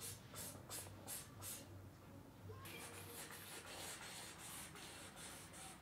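Toothbrush bristles scrubbing teeth in quick, faint back-and-forth strokes, about three to four a second, with a short pause about two seconds in.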